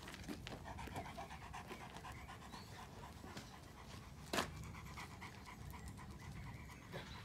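Dogo Argentino panting rapidly and rhythmically. One sharp knock stands out about four and a half seconds in.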